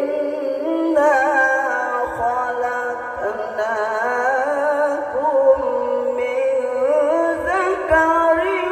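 A male qari chanting Quran recitation (tilawah) in one long melismatic phrase. The voice holds drawn-out notes and ornaments them with quick wavering turns and slides in pitch.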